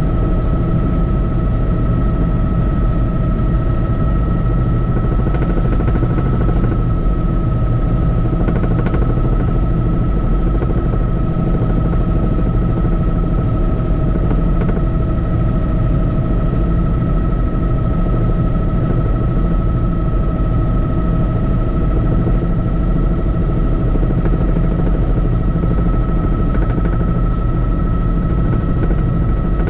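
Helicopter in flight, its rotor and turbine running steadily, with a constant high whine over a rapid low beat.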